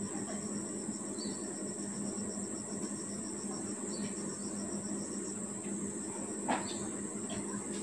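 Insects, such as crickets, calling steadily: a continuous high-pitched trill with a rapid, evenly pulsed chirp over it until about five seconds in. A single short click comes about six and a half seconds in, over a low steady hum.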